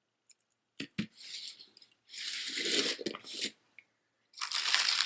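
Small clicks of costume jewelry pieces being handled, with two sharper clicks about a second in. Rustling follows, then a plastic bag crinkling steadily near the end as it is handled.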